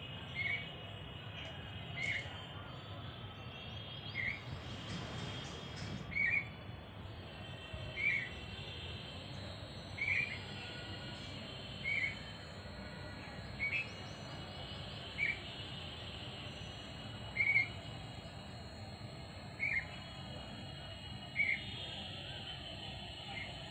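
A bird calling one short note about every two seconds, over a steady low background hum.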